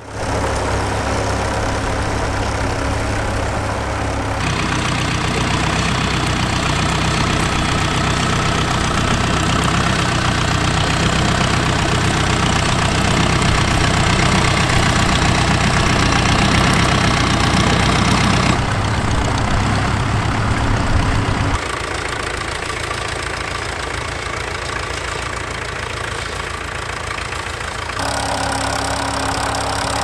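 Vintage tractor engines, a Fordson Major and a grey Ferguson, running steadily as they pull mounted ploughs. The clips are joined end to end, so the engine note changes abruptly several times.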